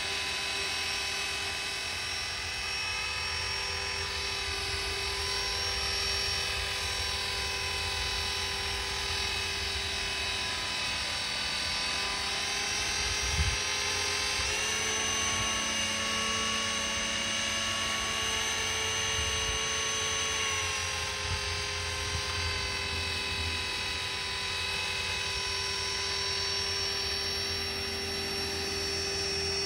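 GAUI X3 electric RC helicopter running, a steady whine from its motor, gears and rotor. The whine steps up in pitch about halfway through and drops back about six seconds later. There is a single thump just before the rise.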